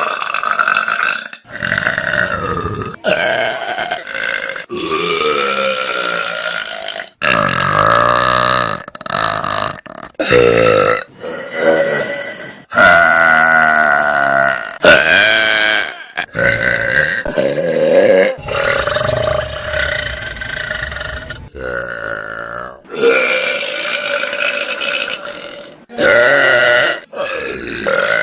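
Loud human burps, one after another, each lasting a second or two with short breaks between them; some slide up or down in pitch.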